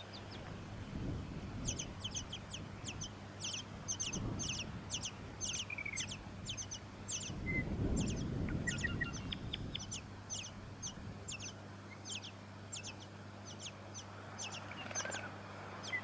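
Tawny-crowned honeyeater nestlings begging at the nest: a long run of high, thin, sharply falling calls, about three a second, while an adult comes to feed them. A low rumble rises and falls about halfway through.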